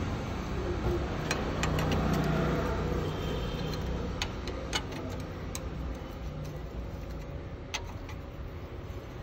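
Piaggio Ape engine running steadily with a low drone, and a few sharp clicks scattered through.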